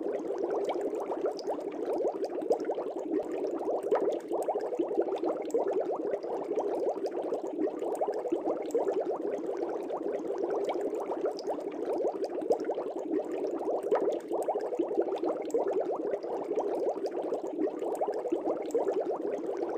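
Air bubbles in an aquarium fish tank: a steady, dense bubbling made of many small pops.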